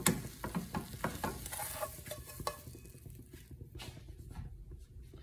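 Metal spatula scraping and tapping against a nonstick frying pan as a folded tapioca is worked and lifted, over a light sizzle. After about three seconds the scraping stops, leaving faint ticks and the low steady rush of the lit gas burner.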